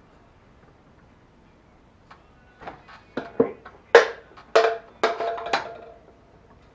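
Inner CV joint housing (tulip joint) of a Toyota 4Runner front axle being worked down over its tripod rollers onto the shaft: a quick series of about eight metal knocks and clunks with short ringing, starting about two and a half seconds in.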